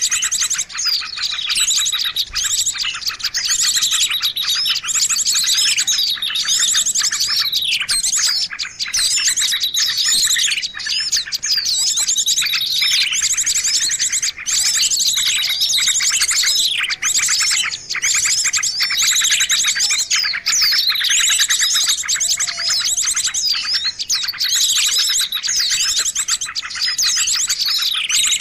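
Dense chorus of many small songbird species chirping and trilling over one another: a mixed bird-lure (pikat) call recording. Fast high trills and chirps overlap with no break.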